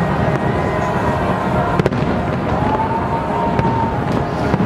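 Large aerial fireworks display: a dense, continuous rumble and crackle of shell bursts, with sharper bangs standing out a little under two seconds in and again near the end.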